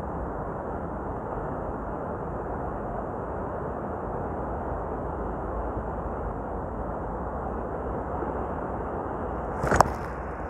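Steady rush of ocean surf breaking along the shore, mixed with wind on the microphone. A single sharp knock near the end.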